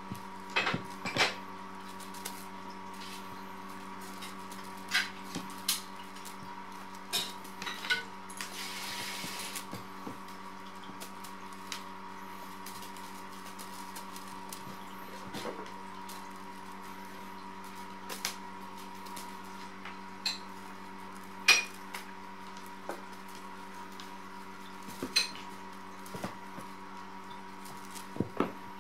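Scattered clinks and knocks of dishes, about a dozen spread irregularly, over a steady electrical hum; a short hiss about nine seconds in.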